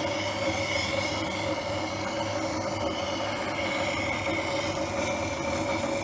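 Dick SM-111 knife-sharpening machine running, its motor giving a steady hum, while a knife blade held in the guide grinds against the turning wheel with a steady hiss.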